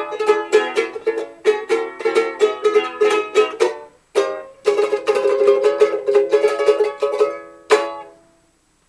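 Background music: a fast plucked-string instrumental break, with a short pause about four seconds in and a final chord near the end before it stops.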